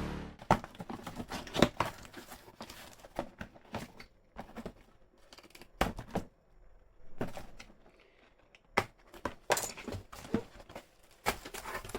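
Cardboard box and packaging being handled and unpacked: irregular rustling and crinkling with scattered sharp knocks and taps.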